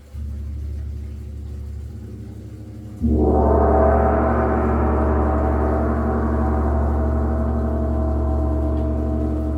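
A gong played with soft strokes. A gentle stroke at the start brings up a deep hum, then a much harder stroke about three seconds in opens a loud, dense wash of overtones that rings on and slowly fades.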